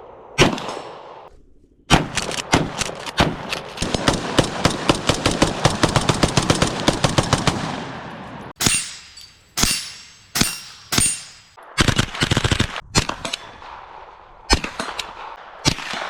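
Firearm shots: a single shot, then a fast string of shots lasting about six seconds, then single shots about a second apart, each with a ringing echo.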